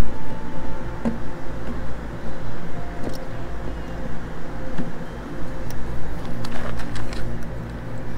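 A steady low mechanical hum with a few light clicks and taps.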